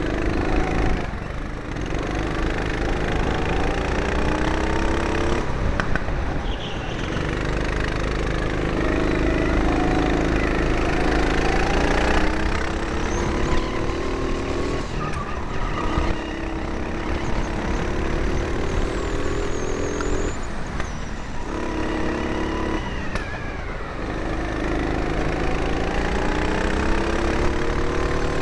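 Four-stroke rental go-kart engine heard from on board. It climbs in pitch down each straight, then falls away briefly as the driver lifts for the corners, several times over.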